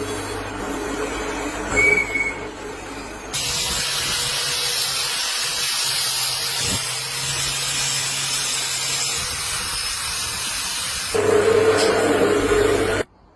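A steady hiss over a low machine hum. The hiss grows louder about three seconds in, swells again near the end, then cuts off suddenly.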